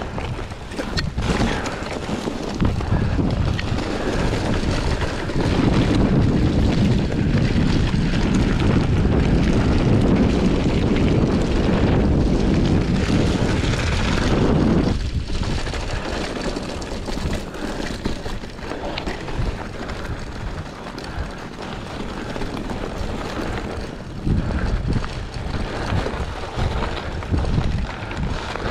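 Wind buffeting the microphone over the rolling noise of a Trek Marlin 5 mountain bike riding over rough ground. The rushing noise is loudest for about ten seconds in the first half, then eases and turns more uneven.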